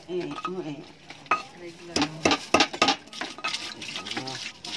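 Stone pestle knocking and grinding peanuts and chillies on a flat stone mortar (ulekan on cobek) to make rujak sauce, with a cluster of sharp knocks about two to three seconds in.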